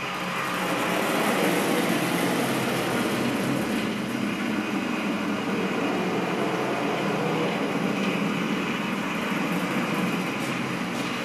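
Motor-driven twin-turntable drawing machine running steadily: two turntables swing a pantograph linkage of flat slats that drags a pen across paper. The sound is a continuous mechanical running noise over a low steady hum.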